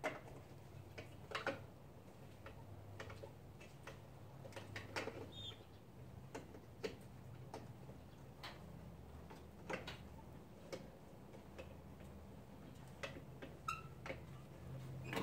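Scattered light clicks and taps of hands working plastic Jeep Wrangler grill parts and headlight fittings, spaced about a second apart, over a faint low hum.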